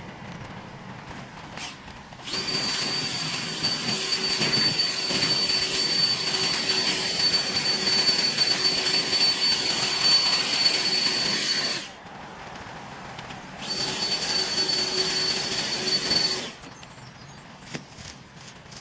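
Kress cordless brushless garden power tool run at full speed twice, for about ten seconds and then about three, each run starting and stopping sharply, with a steady high whine over a rushing noise.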